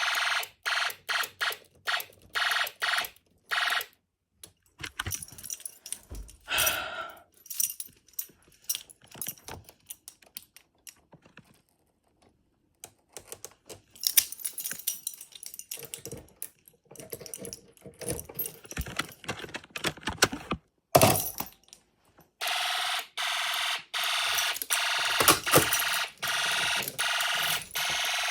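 Sounder of a home-built Snap Circuits fire alarm system going off in short repeated pulses, stopping about four seconds in. Irregular clicks, knocks and rattles follow. The alarm sounds again in quick pulses from about twenty-two seconds in.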